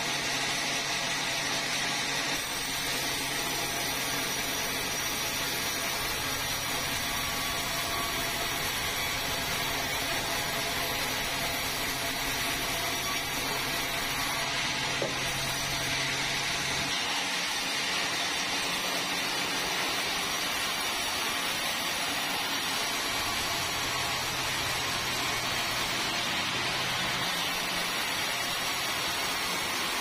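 Large sawmill band saw running and cutting a red meranti timber as the log carriage feeds it through: a steady saw and machine noise. A low hum under it drops out about halfway through and comes back a few seconds later.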